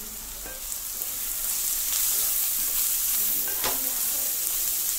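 Sliced onions, green chillies and freshly added chilli and turmeric powder sizzling in hot coconut oil in an aluminium pan while being stirred with a wooden spatula. The sizzle grows louder about a second in, as the spices are stirred through.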